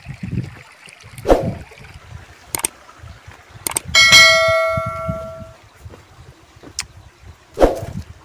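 Subscribe-button sound effect: a click, then a bright bell chime about four seconds in that rings and dies away over about a second and a half. A couple of dull knocks come before and after it.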